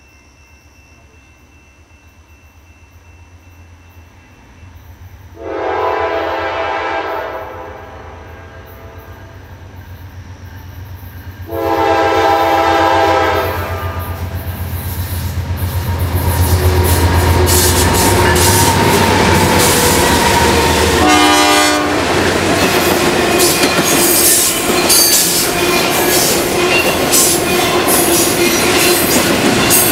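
Approaching Norfolk Southern freight led by two GE C40-9W diesel locomotives: a low engine rumble builds, the air horn sounds two long blasts and then a short one. From about halfway through, the locomotives and then intermodal cars pass close by with a loud rumble and rattle of wheels on rail.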